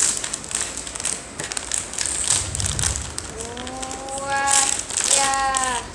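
Plastic candy packaging crinkling and rustling as the bag is torn open and handled. About halfway through, a child's voice makes two long, held vocal sounds without words, the second one sliding down in pitch at its end.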